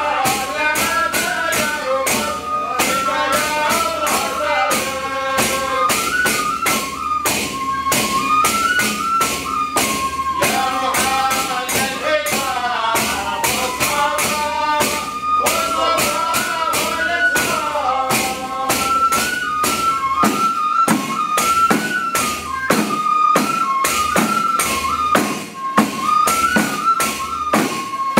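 Traditional Hadrami devotional music: large frame drums beaten together in a steady, even rhythm under a stepping melody.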